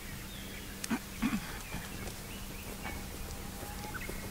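A few soft knocks and handling sounds as balls of bread dough are set into an aluminium mess tin, the loudest about a second in, over a low steady hum, with faint thin high calls in the background.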